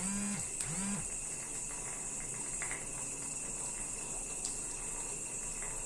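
Steady hiss of a running water tap, with two short hummed sounds from a woman's voice in the first second.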